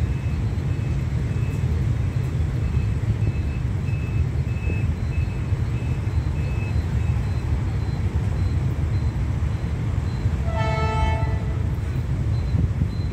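Level-crossing warning signal beeping about twice a second over a steady low rumble, then a single short horn blast near the end.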